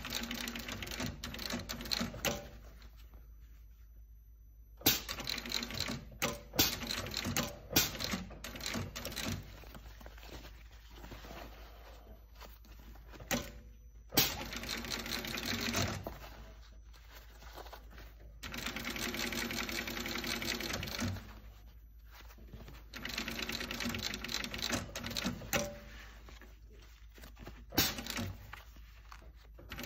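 Industrial sewing machine stitching the palm of a hockey glove onto the fingers in repeated short runs of a few seconds each. It stops and restarts between runs as the glove is repositioned, with a few sharp clicks in the pauses.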